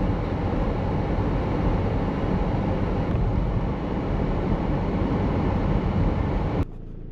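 Steady rumble of road and wind noise from a vehicle on the move, cutting off abruptly near the end.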